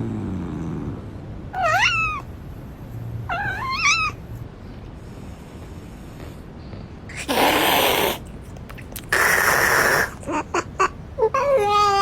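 Domestic cat meowing twice, with short calls that rise and fall in pitch. Later come two loud noisy bursts about a second long, a few short sharp noises, then a long steady yowl starting near the end.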